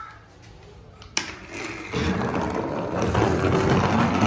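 A sharp click about a second in, then from about two seconds a rolling, grinding rumble that grows louder: a plastic toy truck's wheels being pushed across a hard floor.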